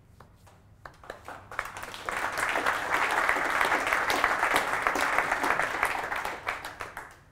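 Audience applauding: a few scattered claps that build within about two seconds into steady applause, which fades out near the end.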